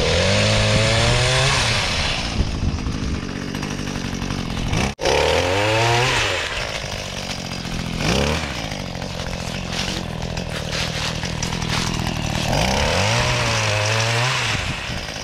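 Gas-powered two-stroke pole saw running, its engine revving up and back down three times (near the start, about five seconds in, and near the end) as the chain cuts fruit-tree branches, settling to a lower run between cuts.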